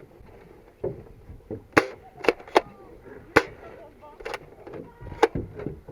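Airsoft guns firing single shots: sharp snapping cracks, about seven of them at irregular intervals.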